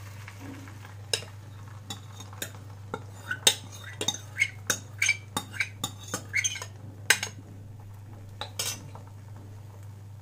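Steel ladle clinking and tapping against the bowl and the non-stick frying pan as the last of the egg batter is poured in: a quick run of sharp clinks through the middle of the stretch, over a steady low hum.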